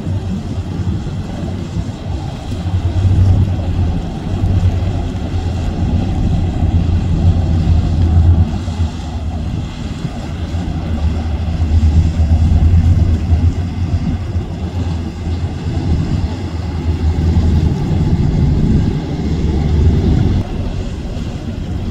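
Trawler-style motor yacht running past under power: a steady low engine drone with the rush of its bow wave and wake, and wind buffeting the microphone in gusts.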